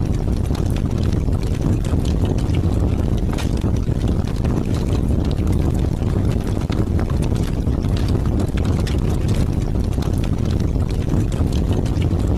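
Heavy rain with a steady deep rumble of wind, and scattered drops ticking over it.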